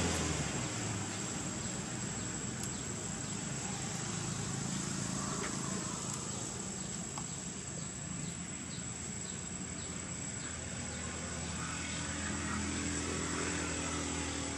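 Forest ambience: a steady high-pitched insect drone over a low engine hum that grows a little stronger toward the end, with faint short chirps now and then.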